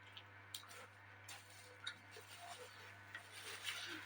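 Faint eating sounds close to the microphone: scattered small clicks and soft chewing over a low steady hum.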